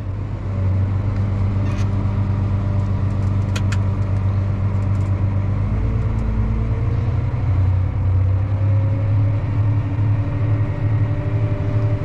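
Tractor engine running steadily under load, driving a grain cart's unloading auger through the PTO as corn is augered out.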